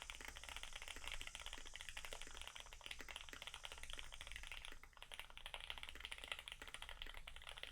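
Fast, continuous typing on a Duck TC-V3 mechanical keyboard with retooled Cherry MX Black linear switches on a PET plate and GMK keycaps: a dense run of quick key clacks with a brief lull about two-thirds of the way through.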